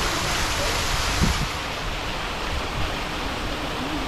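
Wall fountain's water spouts splashing steadily into a stone basin, with a brief low thump about a second in.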